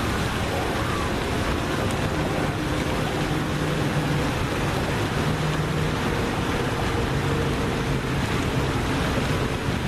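Steady rushing noise of wind over the microphone and lake water, with faint hums coming and going underneath.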